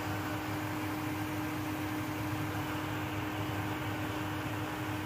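Induction cooker running while it heats a stainless steel mug of water: the steady whir of its cooling fan with a steady electrical hum.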